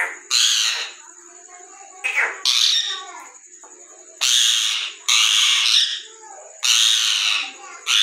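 Indian ringneck parakeet squawking: about six loud, harsh calls at intervals of a second or so, with softer chattering between them.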